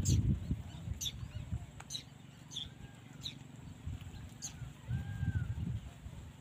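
A bird calling with short, sharp, high down-slurred notes, repeated irregularly about once a second. Under it is a low rumble of wind on the microphone, strongest in the first second and again near the end.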